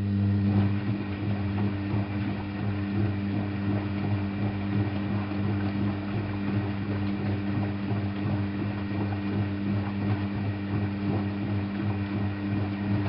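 Drain pump of an Alaska WA8200 E (Balay-built Constructa Viva) washing machine running with a steady, somewhat loud hum while water churns through it.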